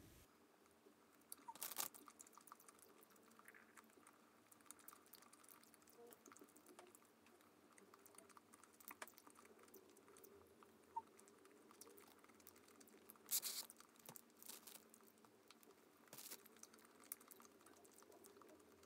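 Near-quiet room with a few faint, sharp crackles as a cheese-filled bread roll is torn apart and squeezed by hand, the loudest about a second and a half in and a cluster around thirteen to sixteen seconds in.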